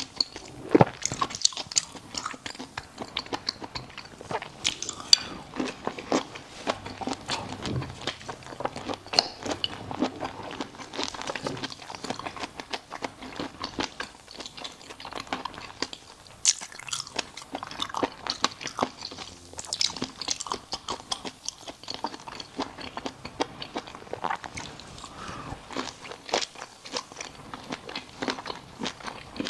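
Close-miked eating: crisp food being bitten and chewed, with rapid irregular crunches and crackles throughout.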